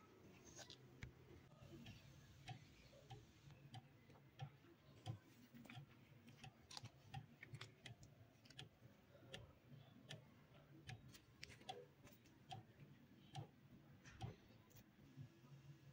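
Near silence with faint, irregular small clicks and taps over a low hum.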